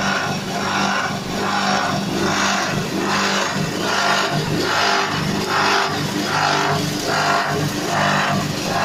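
A 6.5 hp petrol engine running a hammer-mill corn grinder under load, a steady engine drone with a pulsing rush a little more than once a second as the corn is ground.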